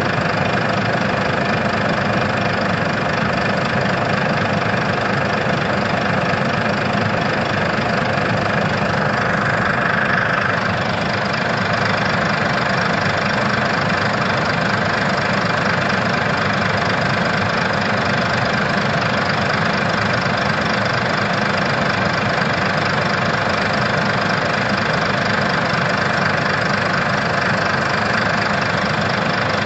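Diesel engine of heavy earthmoving machinery running steadily, briefly louder about ten seconds in.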